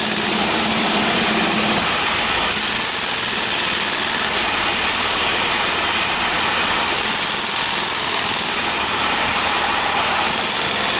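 Jackhammers breaking up asphalt paving: a loud, steady hammering din over the running engine of their portable power unit.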